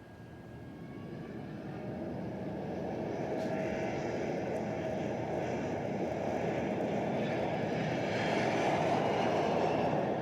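Airplane taking off: a steady engine rush that grows steadily louder, loudest near the end.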